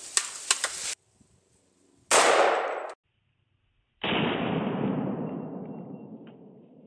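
Two loud rifle shots from an AR-style rifle firing .300 Blackout supersonic rounds at a 1/8-inch stainless steel plate, about two seconds apart. The first cuts off abruptly, and the second dies away slowly over nearly three seconds. A few light handling clicks come in the first second.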